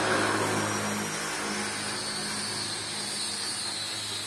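Steady low hum of a running electric motor, which cuts off near the end.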